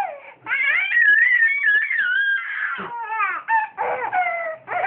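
Toddler laughing and squealing: one long high-pitched squeal of about two seconds, then a few shorter bursts of laughter.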